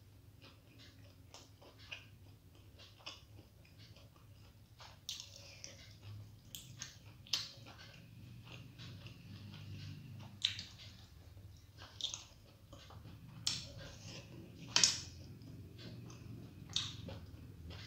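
Close-up chewing of soft steamed vegetable momos: wet mouth clicks and smacks at irregular intervals.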